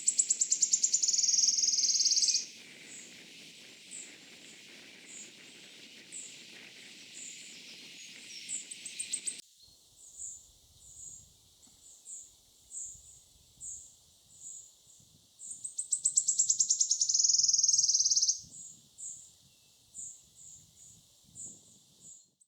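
Wood warbler singing: high ticking notes that quicken into a loud, shivering trill, twice, with scattered single high notes in between.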